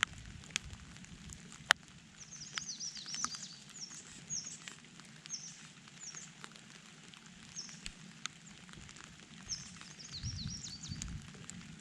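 Small birds chirping in quick, high, repeated calls, with a few sharp raindrop ticks in the first seconds and a low rumble underneath that swells near the end.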